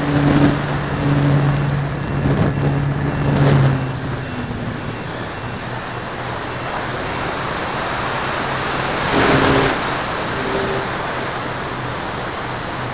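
Electric motor and propeller of a Dynam DC-3 RC model plane humming in flight, picked up by an onboard camera with wind rushing over its microphone. The propeller hum is strongest for the first few seconds, then drops lower, and a gust of wind rush swells about nine seconds in.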